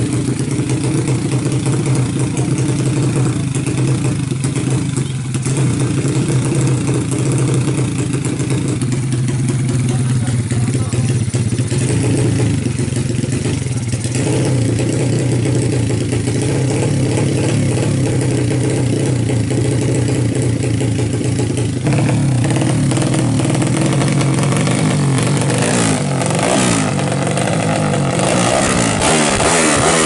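Yamaha Jupiter Z drag bike's single-cylinder four-stroke engine, bored up to 200cc, running loud and steady through its open racing exhaust. Near the end the revs rise and fall as it is blipped.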